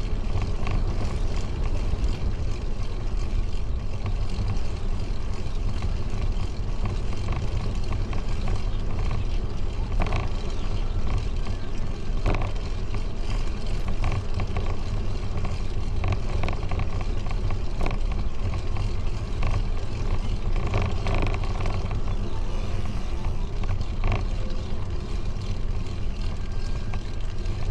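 Steady low rumble of wind on the microphone and bicycle tyres rolling over a paved path while riding, with a few faint clicks and rattles.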